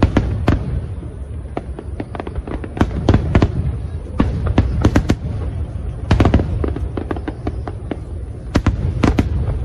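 Fireworks display: a rapid, irregular string of sharp bangs and crackles, several a second, over a continuous low rumble.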